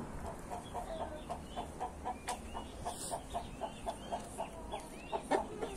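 Chickens clucking in an even run of short clucks, about four a second, with faint high chirps over them.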